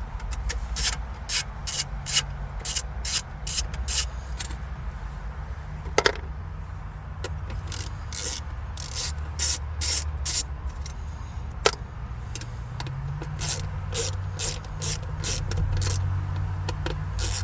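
Phillips screwdriver working screws out of a car stereo bracket: a run of short, scratchy strokes at an irregular pace of about one or two a second, with two sharper clicks, over a steady low hum.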